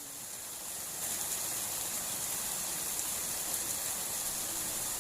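Steady rush of water flowing in a small ditch, a little louder from about a second in.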